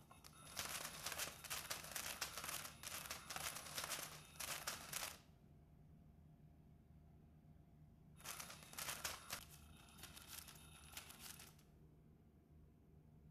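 Battery-powered Catch Me If You Can cat toy running in two bursts of a few seconds each, about three seconds apart: a crackly, scratchy rustle as the wand sweeps under the fabric cover, with a faint motor whine.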